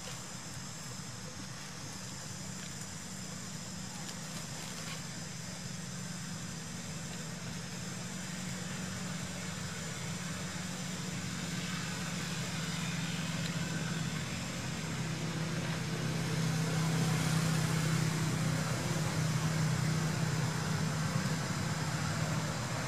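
A motor vehicle's engine running steadily in the background, a low hum that grows louder over the second half and peaks near the end.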